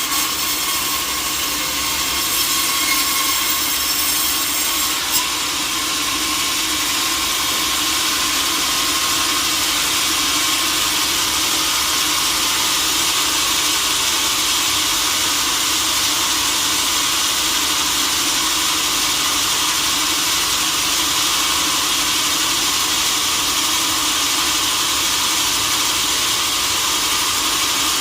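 Sawmill saw machinery running steadily, with a few sharp knocks in the first five seconds.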